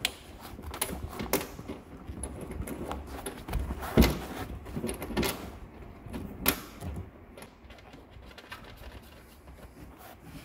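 Gloved hands threading a small nut and washer onto a rock light's mounting stud: scattered light metal clicks and rustling, with a sharper click about four seconds in and another about six and a half seconds in.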